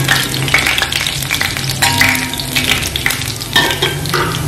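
Chopped ginger, cumin seeds and green cardamom sizzling as they lightly fry in hot ghee, stirred with a metal spatula that scrapes against the pan.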